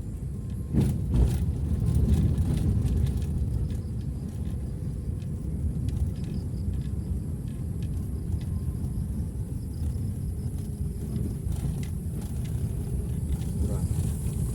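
Steady low rumble of a vehicle travelling over an unpaved dirt road, with a couple of sharp knocks about a second in.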